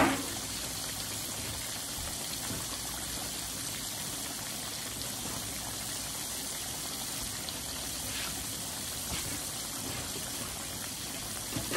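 Pork chops frying in a pan of hot oil: a steady sizzle and bubble.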